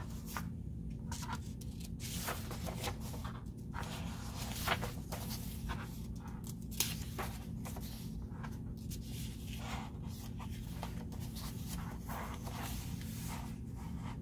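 Paper pages of a paperback picture book rustling and sliding under the hands as they are turned and smoothed flat, with two sharper taps or flaps about five and seven seconds in. A steady low hum runs underneath.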